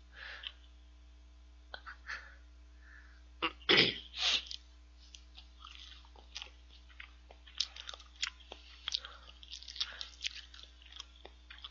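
Chewing soft cheesecake, with scattered small wet mouth clicks and lip smacks. There is a short, loud breathy burst about four seconds in.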